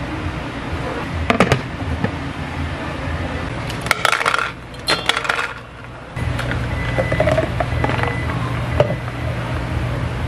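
Hard, sharp clinks of ice cubes dropping into a plastic bottle, a cluster about four seconds in, with a few earlier clinks of dishes. A steady machine hum runs under them.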